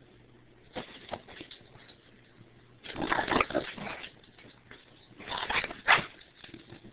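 English bulldog vocalizing in three noisy bursts, the longest and loudest about three seconds in. She is protesting at something being pointed at her.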